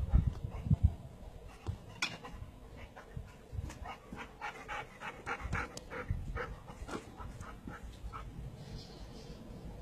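A Boxer dog panting in short quick breaths, about three a second, most steadily in the middle of the stretch. A few low thumps come in the first second.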